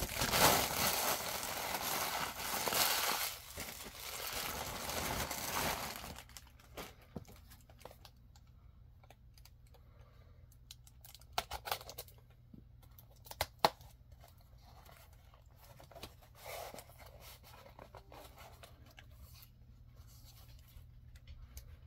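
Clear plastic packaging crinkling and tearing open by hand for about six seconds. After that come quieter rustles of small packets and a few sharp clicks.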